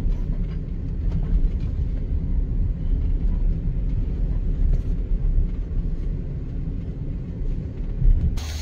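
Low, steady rumble of a vehicle driving, road and engine noise, which gives way abruptly to a different, brighter background just before the end.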